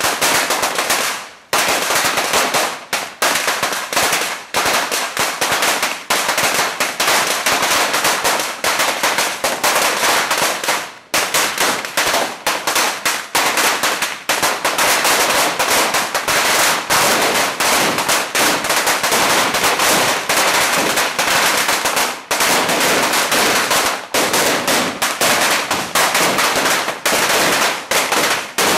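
Firecrackers going off in a rapid, nearly unbroken rattle of sharp cracks, with brief lulls about a second in and again about eleven seconds in.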